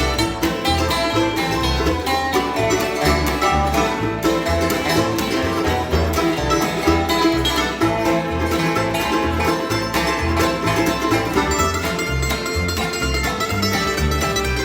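Music with a steady bass beat.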